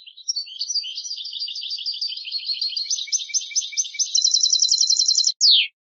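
European goldfinch singing a twittering song phrase of quick, varied high notes. About four seconds in it turns into a fast, even trill, and it ends with one falling note.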